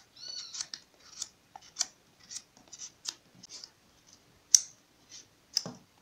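Kitchen knife shaving the skin off a raw pumpkin in short, irregular scraping strokes, roughly two a second, with a sharper click about four and a half seconds in.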